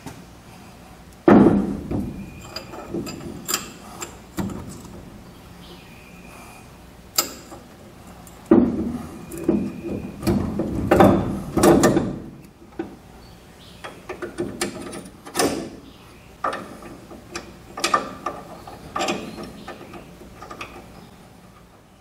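Differential carrier and ring gear being set into a GM 8.5 10-bolt axle housing by hand: irregular metal clunks and clinks as the carrier, its bearings and shims knock against the cast housing, with a sharp clank about a second in.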